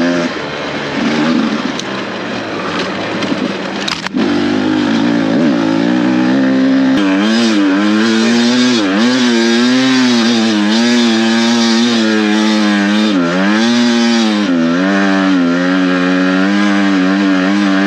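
Two-stroke dirt bike engine running hard under changing throttle, its pitch repeatedly dipping and climbing back. The note is softer and lower for the first few seconds, with a sharp knock about four seconds in.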